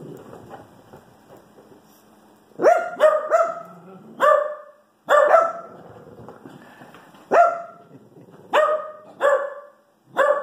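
Small dog barking in play: about ten short, sharp, high barks in quick clusters of two or three, starting about two and a half seconds in.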